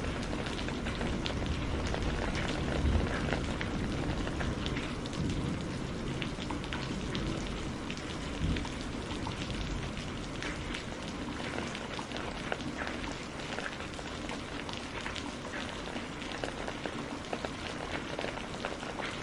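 Heavy rain falling steadily, with many sharp drop splashes pattering through it. A low rumble of thunder dies away over the first few seconds.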